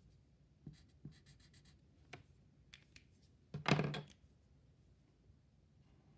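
Highlighter markers handled on a paper worksheet: light clicks and short scratchy strokes of a felt tip on paper, with one louder knock about three and a half seconds in.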